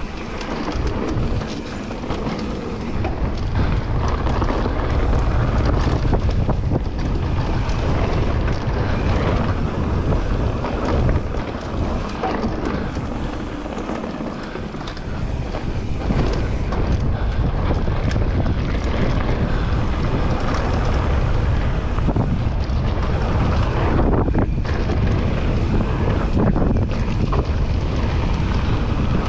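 Wind buffeting the microphone as a mountain bike rolls fast down a dirt trail, with tyre noise and frequent knocks and rattles from the bike over bumps. The rush eases for a few seconds about halfway through, then picks up again.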